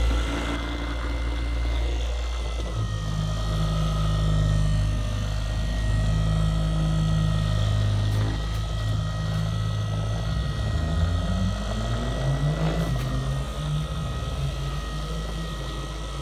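Wen electric car polisher running with its foam pad on the paint, a steady motor drone with a constant high whine; the low hum wavers about two-thirds of the way through as the pad is worked across the panel.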